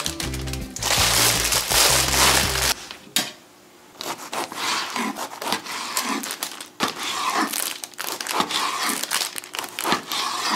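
A plastic bag crinkling as a baguette is taken out, over background music that stops about three seconds in. Then a knife saws through the baguette's crisp crust on a wooden cutting board in quick repeated strokes.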